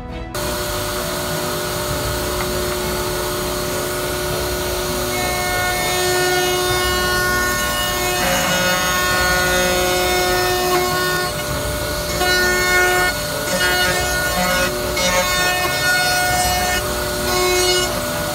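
CNC gantry router milling solid wood: the spindle's steady whine over the rasping of the cutter in the wood, starting suddenly just after the start. Its tones come and go as the cut changes.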